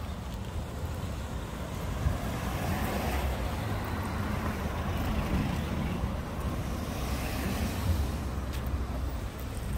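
Outdoor road ambience: a steady low rumble of vehicle traffic.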